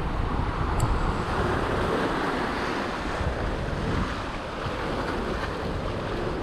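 Sea surf washing and breaking over shore rocks, with wind buffeting the microphone in a low rumble.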